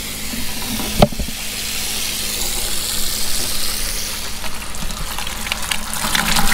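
Tap water running from a faucet into a shallow plastic sink basin and down its drain, a steady splashing hiss. One sharp click about a second in.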